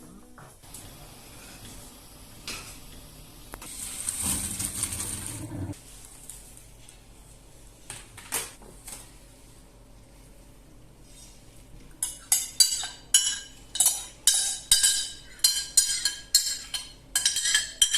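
Kitchenware sounds: a few scattered clicks and a brief hiss early on, then, from about two-thirds of the way in, a metal utensil clinking against a dish in a quick steady rhythm of about three strikes a second.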